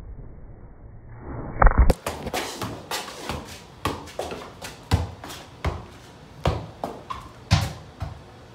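Muffled rustling of a phone being handled, ending in a few loud knocks, then a ball kicked over and over as it is juggled with the feet: sharp, irregular thumps two or three times a second, stopping shortly before the end.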